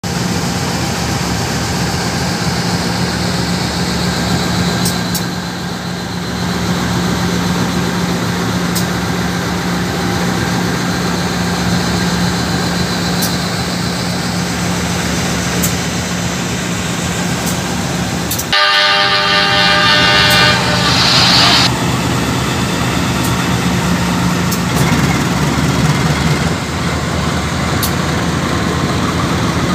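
KAI CC 201 diesel-electric locomotive standing with its engine idling, a steady low drone. About 19 seconds in, its horn sounds one loud blast of about three seconds, then the engine runs on.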